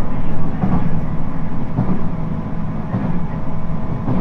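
Interior running sound of a JR East 719 series electric train under way: a steady low rumble with a faint steady whine over it and a few short wheel knocks, about one a second. This is the car known among enthusiasts for its unusual jet-like noise.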